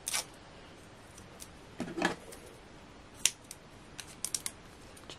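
Small craft scissors snipping pieces off a roll of red liner double-sided tape: a few sharp snips about a second or two apart, then a quick run of small clicks near the end.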